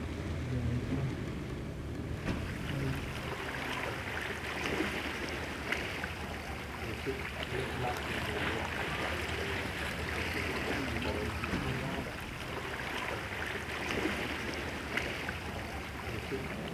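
Small waves lapping and splashing against shoreline rocks, with a low steady rumble underneath. The splashing comes in about two seconds in.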